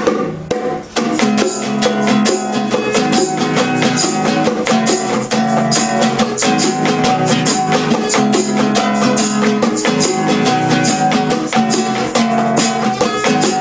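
Instrumental break of a reggae song: acoustic guitar strumming a steady rhythm with bongo drums, no singing.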